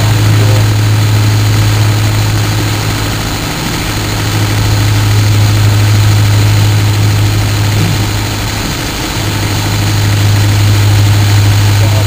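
Ford 7.3L Power Stroke V8 turbodiesel running under light load at a steady cruise, a steady low drone that eases slightly twice.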